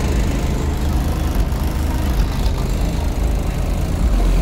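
Twelve 15-inch Sundown SA subwoofers in a pickup's clamshell enclosure, playing deep bass at very high volume, heard from outside the truck. A long, low bass note comes in stronger about four seconds in.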